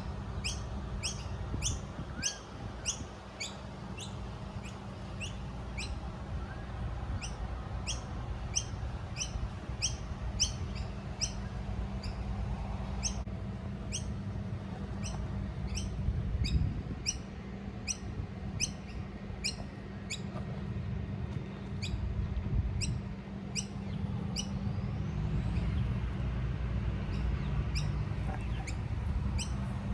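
Fledgling figbird chirping over and over, a short high call repeated evenly about twice a second, over a steady low rumble.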